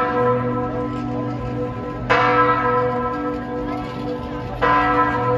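Church bells ringing. A loud stroke comes about every two and a half seconds, twice here, over the steady ringing of bells still sounding.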